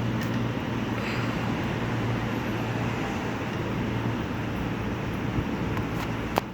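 Steady low rumble with a constant low hum, like distant road traffic, and a single sharp click near the end.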